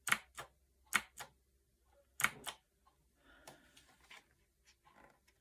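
Keys of a Fineday mechanical keyboard being pressed three times, each press a quick pair of clicks as the key goes down and comes back up, followed by faint low handling noise.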